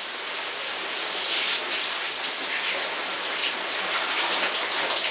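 Shower running: a steady hiss of water spray falling into the tub.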